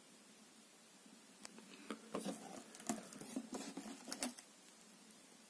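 Faint rustling of a paper instruction sheet and light knocks on a cardboard box, starting about a second and a half in and going on for about three seconds.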